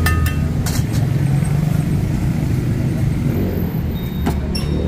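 Steady low rumble of busy street traffic, with a few sharp clinks in the first second and another near the end.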